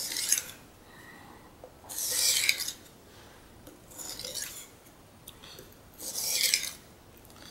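Carbon-steel knife blade drawn across the wet 8000-grit face of a Norton waterstone: four slow, hissing sharpening strokes about two seconds apart, with quiet between them.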